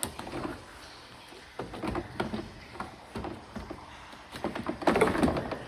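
Hands fitting car door seals and trim, making scattered knocks, clicks and rubbing, with a burst of louder knocks about five seconds in.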